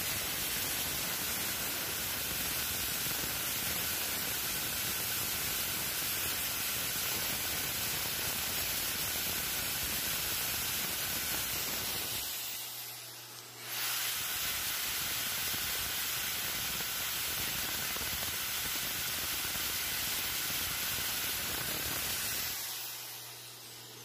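Angle grinder with a thin cutting disc grinding the burr off the end of a steel bolt that spins in a bench drill press chuck: a steady, hissing grind. There is a brief break about halfway where only a low hum is left, and the grind fades out near the end. The disc is a cutting disc, not one made for grinding.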